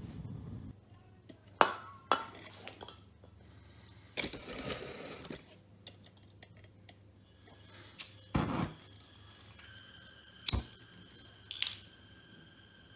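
A Bunsen burner's gas flame runs with a low rush that stops abruptly under a second in. Metal fittings on a butane canister and hose then clink and click as they are handled. Near the end a steady thin whistle of flowing gas starts, and a sharp pop comes as the burner relights.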